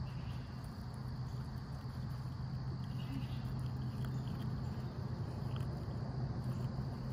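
Steady outdoor insect chirring, a constant high whine, over a low steady hum.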